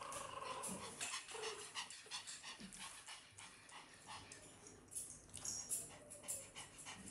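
Poodle puppies nursing from their mother: many faint, quick wet clicks of suckling and snuffling, with a couple of brief puppy whimpers.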